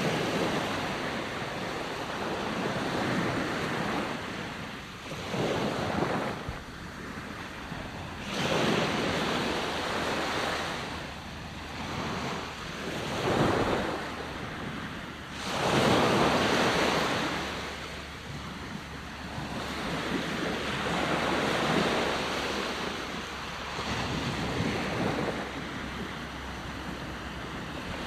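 Ocean waves breaking and washing in. The surf swells and fades every few seconds, with no steady tone.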